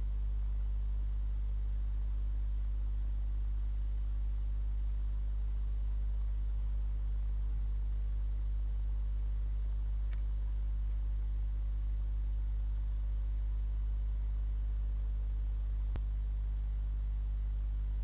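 Steady low electrical hum with a faint hiss, the kind picked up by a nest-box camera's microphone line. There are two faint ticks, one about midway and one near the end.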